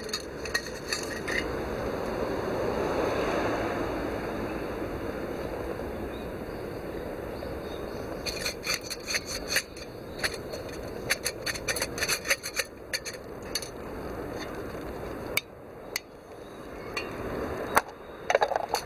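Steady rubbing and scraping with light clicks and taps scattered through it, densest in the middle.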